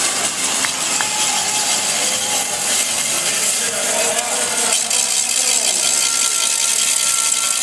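BMX tyres rolling over wooden ramps, a steady rough hiss, over the murmur of a crowd in the hall.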